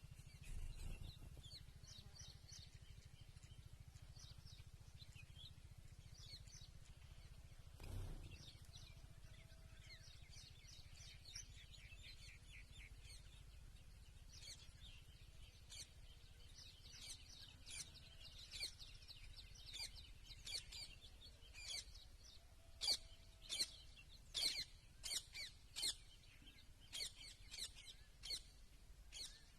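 Small birds chirping in short, high chirps, sparse at first and growing busier and louder after the middle, with a run of sharp, loud chirps near the end. A low steady rumble sits underneath, with a soft thump about a quarter of the way in.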